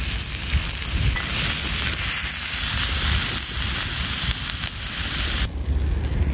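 Thick block of beef sizzling as it sears in a hot iron skillet, a dense steady hiss that cuts off suddenly about five and a half seconds in.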